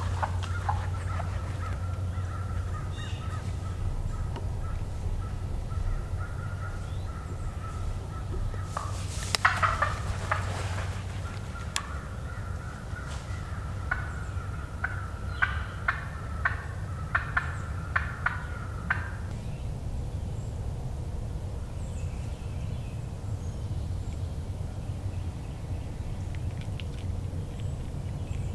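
Wild turkey gobble about nine seconds in, a short rattling burst and the loudest sound. A thin, steady high tone runs before and after it, with a run of sharp clicks near the middle.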